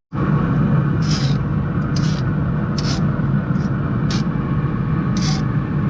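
Steady low rumble with a short hissing scrape about once a second, like food being stirred in a pan on the grill.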